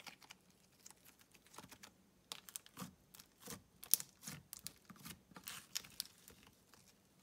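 Soft slime being pressed and kneaded by hand, giving off irregular sticky clicks and crackles. They come thickest in the middle few seconds and fade out near the end.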